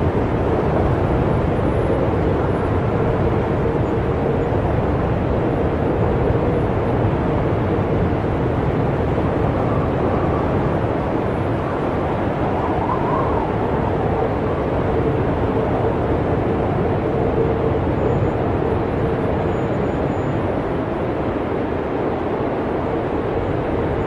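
Snowstorm wind blowing steadily, a low even rushing with a faint wavering whistle running through it.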